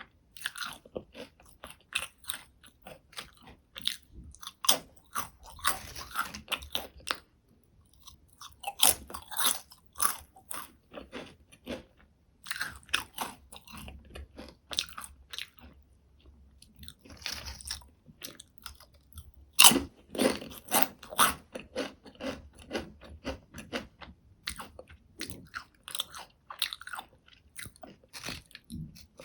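Potato chips being bitten and chewed close to the microphone: sharp, crisp crunches in bursts of rapid chewing with short pauses between mouthfuls, the loudest bite a little after the halfway point.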